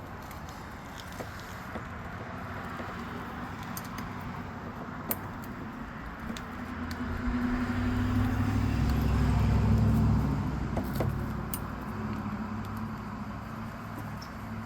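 Small metallic clicks and clinks of a kayak rudder bracket and spring being handled and lined up. A low rumble swells up around the middle and fades away again.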